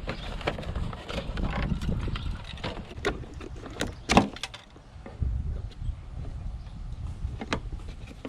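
Hand work on a car's plastic tail light assembly and trim: scattered clicks and knocks over low handling noise, with one sharper click about four seconds in.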